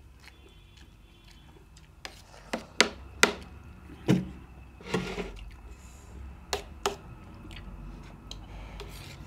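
Metal spoon clinking and scraping against a stainless steel plate of rice and milk: about eight sharp, irregular clicks, starting about two seconds in and stopping near seven seconds.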